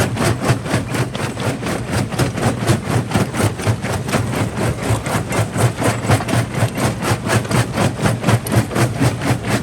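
Quarry jaw crusher running, a steady low hum with an even, rapid pulse several times a second from its swinging jaw.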